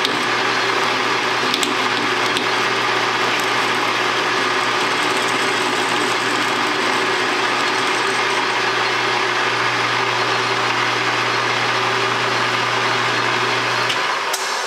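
Metal lathe running steadily under power while a facing cut is fed in by hand with the cross-slide. Its low hum cuts off near the end as the machine is switched off and begins to wind down.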